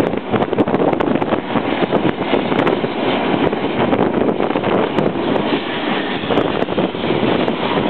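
Vintage steam train running along the track, heard from right behind the locomotive's tender: a steady rolling rumble with scattered faint clicks, and wind buffeting the microphone.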